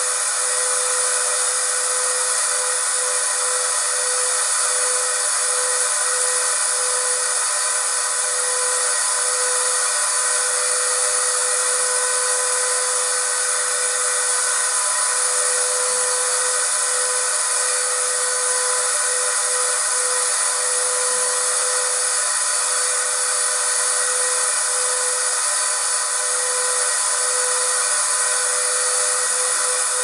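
Vacuum cleaner motor running steadily: a constant whine over a hiss, with no low rumble and no change in pitch or level.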